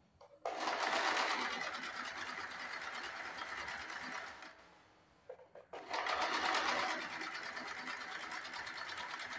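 Electric sewing machine stitching through cloth in two runs, pausing for about a second midway, as a tuck is sewn over a second time to double the seam.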